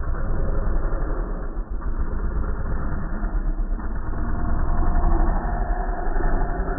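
Dirt bike engine revving under throttle as the rider pops the front wheel up into a wheelie, loudest about five seconds in.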